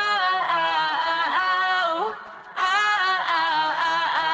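Isolated lead vocal of a pop song with no backing instruments: a singer holds long, slightly wavering notes in two phrases, with a short break about two seconds in.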